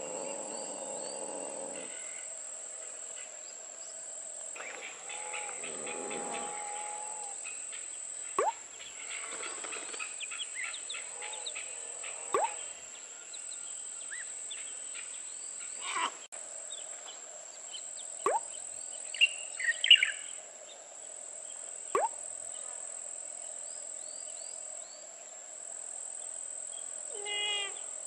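Outdoor garden ambience: birds chirping, with a sharp call every few seconds, over a steady high-pitched whine.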